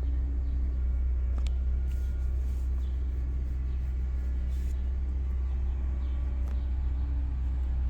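Steady low engine rumble with a faint hum above it, unchanging throughout.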